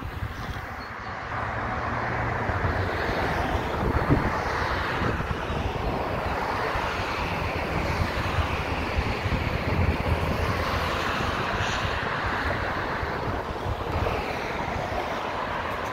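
Wind blowing across the phone's microphone: a steady rushing roar with rough, fluttering low buffeting.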